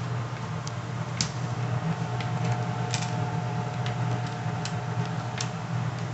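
Scattered light clicks and taps of punch-out game tokens being handled and flipped over, about six in all, over a steady low hum.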